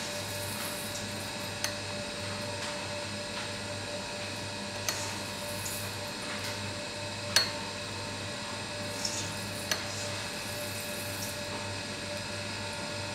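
A steady machine hum, with a few sharp clinks of a metal latte-art etching pen against the porcelain cup; the loudest comes about seven seconds in.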